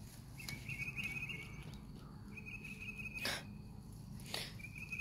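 Insects trilling at one high pitch in repeated stretches of about a second with short gaps, with two brief soft clicks a little past the middle.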